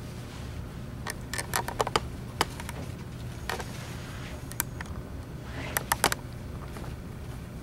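Paper wrapping of a Foley catheter kit crinkling and crackling as it is unfolded by hand to lay out a sterile field, in several short spells of sharp crackles, over a steady low hum.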